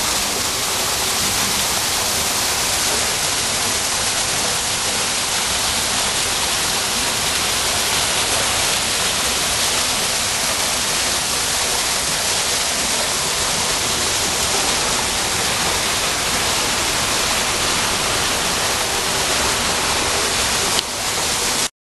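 Water falling down a stone wall waterfall: a loud, steady rush of splashing water, with a brief click near the end.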